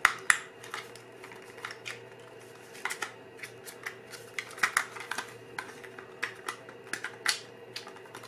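Hands loading 35 mm film into a plastic Holga 135 camera: scattered clicks and taps of the film cassette and film against the camera body, with two sharp clicks right at the start and small clusters a few seconds in. A faint steady hum runs underneath.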